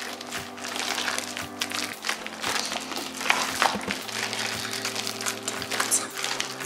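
Purple crunchy slime packed with foam beads being kneaded, squeezed and stretched by hands, giving many small wet clicks, pops and squelches. Soft background music with held chords that change every couple of seconds plays underneath.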